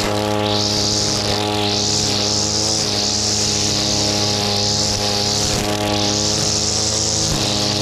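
Shindaiwa brushcutter engine running steadily at high speed while its nylon-line head cuts grass. The hiss of the line through the grass swells and fades with each sweep, about once a second.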